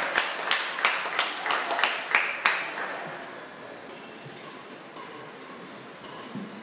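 Spectators in a sports hall clapping and cheering, with sharp claps about three a second and some shouts. It dies away about two and a half seconds in, leaving quiet hall background.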